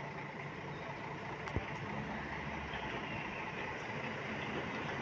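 City bus engine idling steadily, with a single sharp click about a second and a half in.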